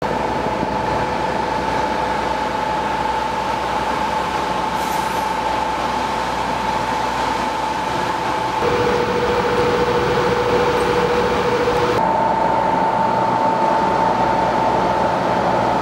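Stryker armoured vehicles' diesel engines idling: a steady rumble with a high whine on top. The tone shifts abruptly twice, a little past halfway and about three quarters in.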